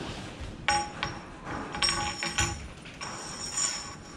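A metal pipe spacer slid onto a hydraulic ram's rod, clinking against it several times, each knock ringing on briefly with a bell-like metallic tone.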